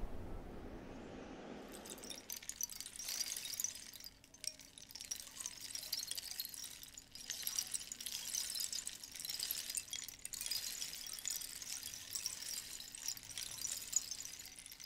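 A low rumble dying away over the first two seconds, then a faint, high crackling hiss that swells and dips irregularly, with a thin steady hum beneath it.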